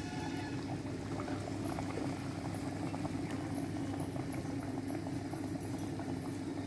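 A tati gare (palm-fruit and rice-flour batter fritter) deep-frying in hot oil: a steady sizzle and bubbling fizz with fine crackles, over a low steady hum.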